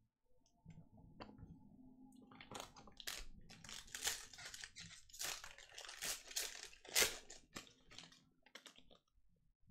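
Crinkling and tearing of a trading-card pack's plastic wrapper as it is ripped open, a dense run of crackles starting a couple of seconds in and stopping just before the end.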